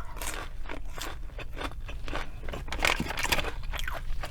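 A person chewing crunchy breaded fast food close to the microphone: a quick, irregular series of crisp crunches and mouth clicks.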